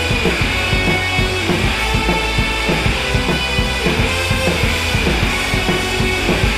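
Background music with a steady drum beat over a sustained bass line.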